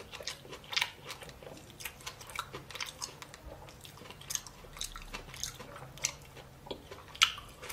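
A person chewing food with the mouth closed, a run of irregular clicks from the jaw and mouth.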